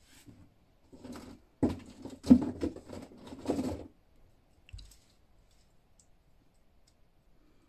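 Hard plastic toy figures being rummaged and knocked together, a flurry of clacks and rattles from about one to four seconds in. The sharpest knock comes a little past two seconds in.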